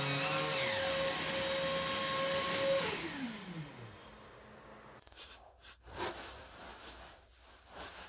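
A battery random orbital sander and the small shop vacuum hooked to it running together, then switched off: the whine falls in pitch as the motors wind down, one from about half a second in, the other holding steady until near three seconds before dying away within a second. Then faint rustling with a soft knock.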